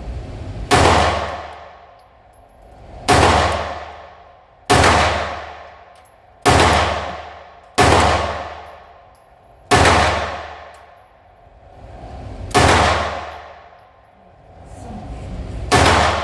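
Beretta APX A1 Full Size 9mm Luger pistol fired eight times in slow, uneven succession. Each shot is a sharp crack that dies away over a second or more.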